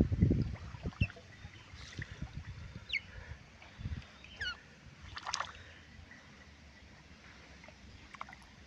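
Otters splashing and paddling in shallow ditch water: sloshing splashes, loudest in the first second, then quieter lapping with a few short high falling chirps.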